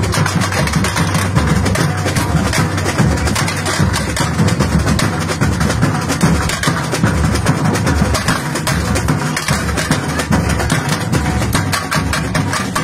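Samba drum section (bateria) playing a steady loud groove: large surdo bass drums keep the beat under snare drums and small hand-held percussion.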